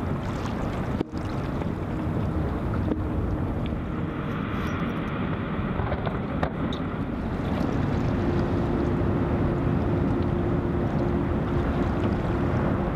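Low, steady rumble of a boat's motor with wind buffeting the microphone, filmed on the water beside an ice cliff; a steady engine hum comes in more strongly about eight seconds in. The sound drops out for an instant about a second in.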